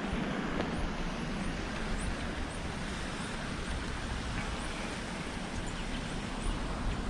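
Steady rushing noise of a shallow river flowing over rock slabs, with a faint, high, short chirp repeating about twice a second.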